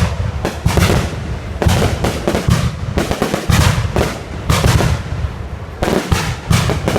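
Fireworks display: shells bursting in a steady barrage, two or three sharp bangs a second, with a short lull about five seconds in.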